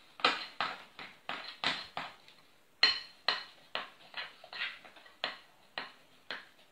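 Batter being beaten by hand in a glass bowl: a utensil scrapes and clinks against the glass in quick strokes, about two a second, with a short pause about two seconds in. The bowl stands on a folded cloth that damps the clatter.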